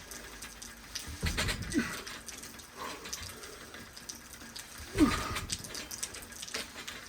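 Weight plates on a home cable-fly stack scraping against the garage wall, giving a squeal that falls in pitch with each rep. This happens twice, with a low thud as the stack moves.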